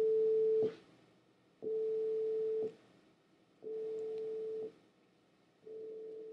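A pure test tone of one steady pitch played as one-second beeps about a second apart, each beep quieter than the last. It is a loudness demonstration with the frequency held the same and the level stepping down in 5-decibel increments.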